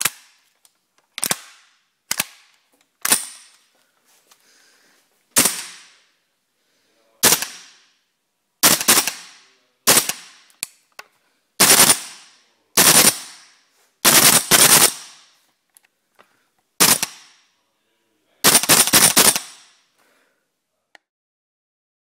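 Airsoft BB rifle firing: single sharp shots a second or two apart at first, then quick doubles and short rapid bursts of several shots, each with a short fading tail.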